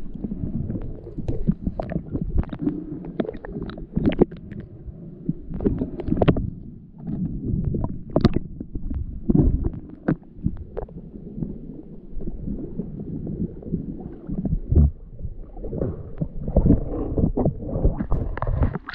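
Muffled underwater knocks and scrapes of a dive knife prying at a mussel on a rock, over a low rumbling water noise. In the second half, water splashes and laps at the surface around the camera.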